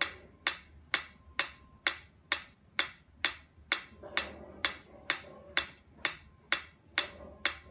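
Pyramid-shaped mechanical metronome ticking at a steady tempo, a little over two sharp ticks a second.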